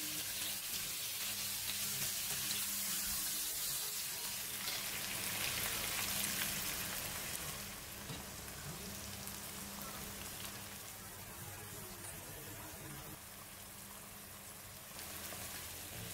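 Diced chicken and garlic sizzling in hot oil in a non-stick wok, stirred with a spatula. About eight seconds in, liquid is poured in and the sizzling drops to a quieter, softer level.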